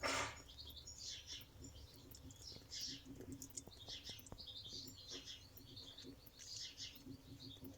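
Small birds chirping and twittering in quick, repeated high calls, with a brief rustling noise right at the start.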